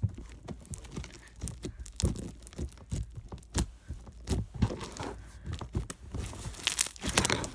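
Sticky slime with fishbowl beads being squeezed and stretched by hand, giving irregular crackles and pops that are busiest near the end.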